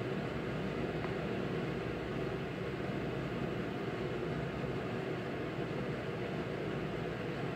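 Steady mechanical whirring hum of a small machine running without change.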